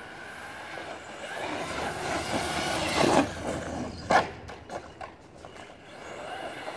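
Electric RC monster truck driving near, its motor and tyres growing louder to a peak about three seconds in. A sharp knock follows about a second later, with a few lighter clicks after it.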